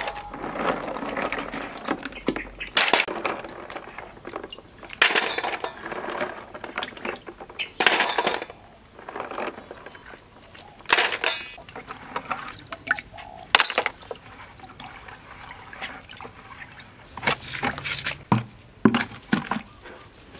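Freshwater snails being washed by hand in a plastic bucket of water: irregular sloshing and splashing, with sharp clicks of shells knocking together.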